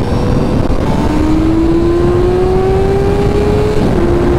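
Honda CBR 600's inline-four engine accelerating hard, its pitch climbing steadily, then dipping slightly near the end, over heavy wind rush on the onboard microphone.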